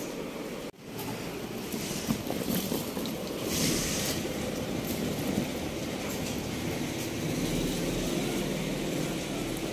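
Cut raw mango pieces tipped out of a steel bowl onto a cloth-covered cot, a brief rustling clatter about three and a half seconds in, then pieces being spread by hand. A steady wind-like hiss and rumble lies underneath throughout.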